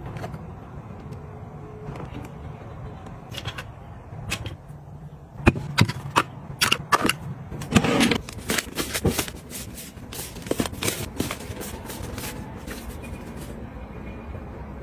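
A run of light clicks, taps and short rustles as items are handled. The sounds are busiest in the middle, with a longer rustly burst about halfway through, over a low steady hum.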